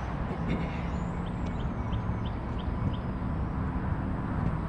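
Steady low outdoor rumble with a faint steady whine under it, and a quick run of about six faint high chirps in the middle.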